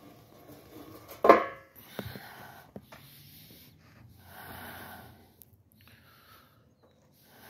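A metal fire-pit lid clanks once, loudly and briefly, about a second in as it is handled and set down. Soft breathy rustling and small knocks follow.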